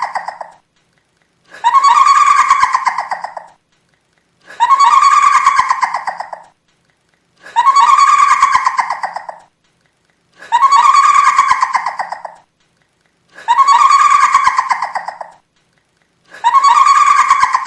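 Kuntilanak ghost laugh effect: a high-pitched woman's cackling 'ngekeh' laugh in rapid pulses, each laugh about two seconds long and rising then falling slightly in pitch. The same laugh repeats about every three seconds, six times over, with short silences between.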